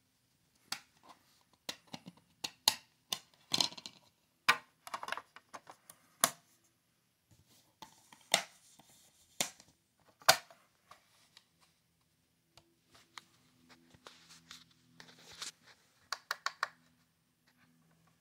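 Plastic clicks and scrapes of a DVD being pried out of its case and pressed onto the spindle of a portable DVD player, the lid closing over it. Near the end there is a quick run of clicks under a faint hum.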